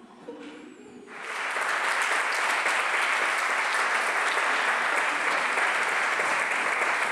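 Audience applauding, starting about a second in and then holding steady.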